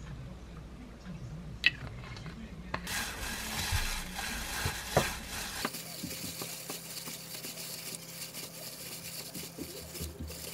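Hand in a thin plastic kitchen glove tossing shredded green onion with seasoning sauce in a glass bowl: plastic rustling and wet squishing of the dressed onion, starting about three seconds in.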